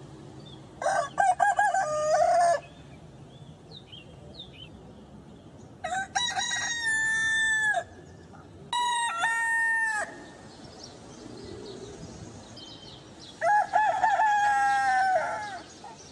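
Rooster crowing four times, each crow a drawn-out cock-a-doodle-doo of one to two seconds, with the second and third close together and the last near the end. Faint bird chirps come in the gap after the first crow.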